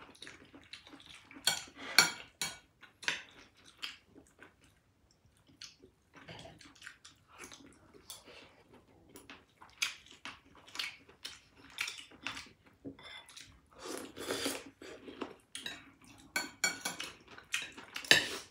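Cutlery clinking and tapping against plates and bowls as people eat, in irregular scattered clinks that come thickest about three-quarters of the way through.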